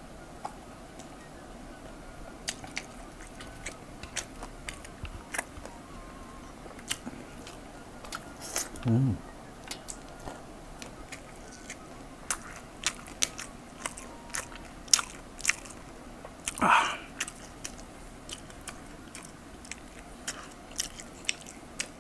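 Close-up eating sounds of a man chewing fried rice eaten by hand: many small wet mouth clicks and smacks, with a short low hum about nine seconds in and a louder mouth noise near seventeen seconds.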